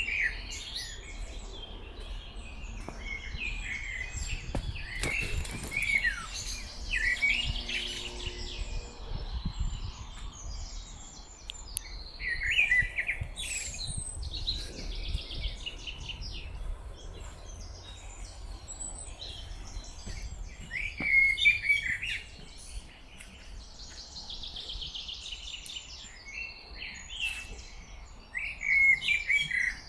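Wild songbirds singing: short, bright song phrases come again every several seconds, with other chirps between them, over a low steady rumble.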